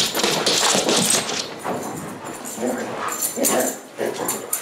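Dogs playing tug-of-war over a towel: scuffling with playful dog vocalising. It is loudest in the first second and a half, then comes in short, choppy spells.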